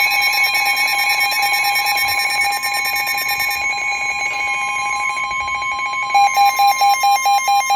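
Emergency alert tones ahead of a marine warning broadcast: a steady, piercing electronic alarm tone together with a second, purer warning tone. About six seconds in, the alarm changes to rapid beeping at about three to four beeps a second.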